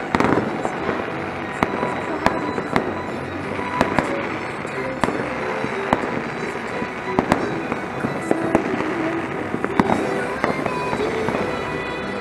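Fireworks and firecrackers going off all around: a dense, continuous crackle with many sharp bangs and pops scattered through it.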